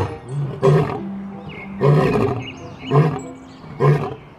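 Male lion roaring in a series of short, deep grunts, about one a second, five in all.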